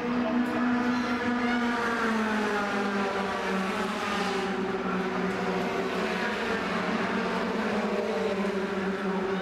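Racing pickup trucks' engines running hard around an oval, their pitch dropping a little about two seconds in, with a brief rush of noise around four seconds in as a truck passes.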